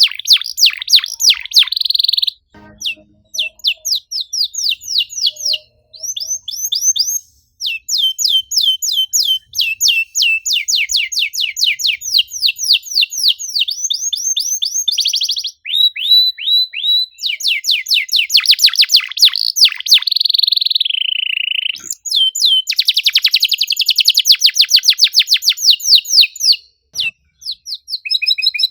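Domestic canary singing a fast, unbroken run of high, sharp chirps and rolling trills, each tour a rapid series of falling notes, with a few short breaks. It is the tight, busy 'gacor' song used to prompt other canaries to sing.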